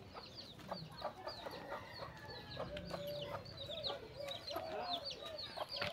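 Birds calling: many quick, high chirps that fall in pitch, repeated throughout, with some lower calls among them.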